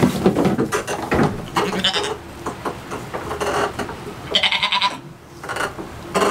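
A goat bleating a few short calls, the loudest about four seconds in, with knocks and rustling in the first couple of seconds.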